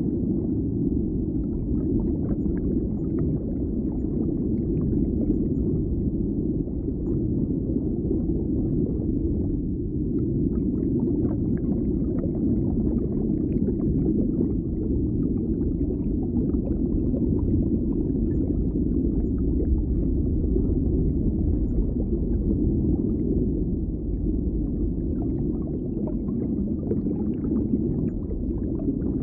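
Steady low rumble of the ambience in a large indoor space, with faint scattered crackles and ticks over it.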